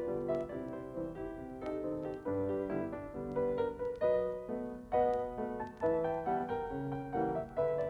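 Piano music: a quick run of melody notes over changing bass notes, played as accompaniment to a silent film.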